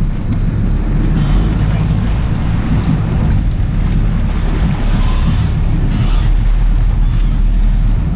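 Sportfishing boat's engines running steadily, mixed with wind buffeting the microphone and water rushing and splashing at the stern.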